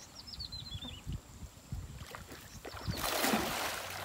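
Water splashing and churning about three seconds in as a man wades and hauls in a cast net in a shallow river. A few faint bird chirps come near the start, over a low rumble.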